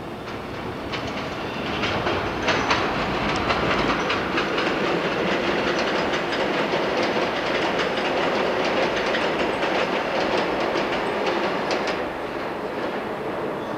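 New York City subway train passing close by, its wheels clattering over the rail joints in a fast run of clicks. The sound builds over the first two seconds, holds, and fades from about twelve seconds in.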